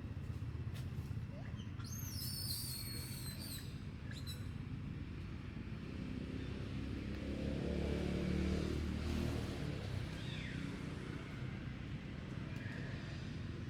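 A motor vehicle passing: its engine hum swells to loudest around the middle and fades, over a steady low rumble. A short run of high-pitched chirps sounds about two seconds in.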